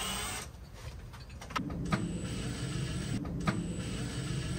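A cordless power tool's electric motor running steadily at low speed, with a few sharp clicks. It starts about one and a half seconds in, after a short drop in the noise.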